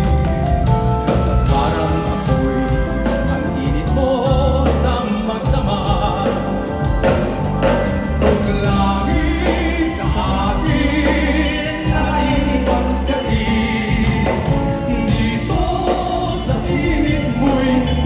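Live band music with a male lead singer singing into a handheld microphone, backed by keyboards, drums, guitar and backing vocalists.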